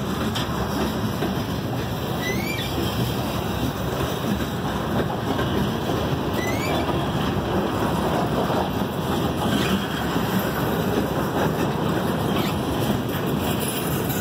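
Freight cars, covered hoppers and boxcars, rolling steadily past: a continuous rumbling rush of steel wheels on rail, with wind noise on the microphone.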